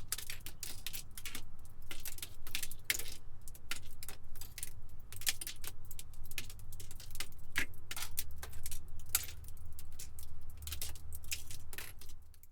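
Glass debris from a shattering: many small shards clinking and tinkling in a dense, irregular patter of sharp, bright clicks, over a low rumble.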